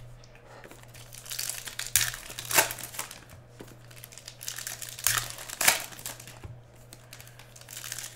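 Plastic-foil trading-card pack wrappers crinkling and tearing as packs are opened by hand, with two pairs of sharp, loud rustles.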